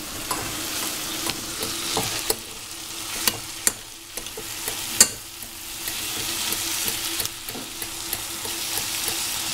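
Ground beef and onions sizzling in hot oil in a stainless steel pot while a spoon breaks up and stirs the mince. The spoon knocks sharply against the pot a few times.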